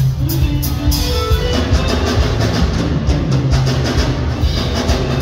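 A live band playing: electric guitars and bass guitar over a drum kit, with sustained bass notes and regular cymbal strokes keeping a steady beat.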